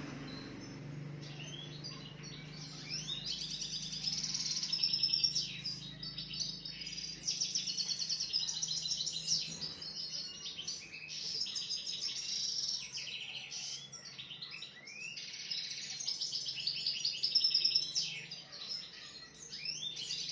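A small caged songbird singing: rapid trills and twittering chirps in phrases of a few seconds, with short pauses between them, over a steady low hum.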